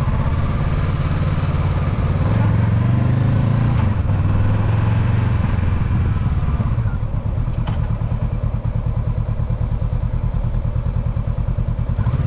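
Honda CB500X's parallel-twin engine running as the motorcycle rides slowly. The engine note rises for a few seconds, then eases off about seven seconds in to a lower, pulsing run.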